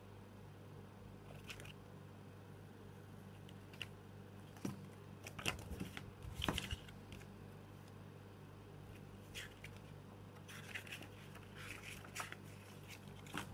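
A paper CD booklet and a plastic jewel case being handled: papery rustling and scraping as pages are turned, with scattered sharp clicks and taps, the loudest two about five and a half and six and a half seconds in. A steady low hum runs underneath.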